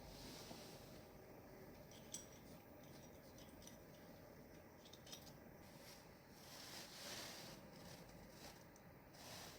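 Near silence with a few faint, sharp metallic clicks of small parts or tools being handled, about two and five seconds in, and a soft hiss near the end.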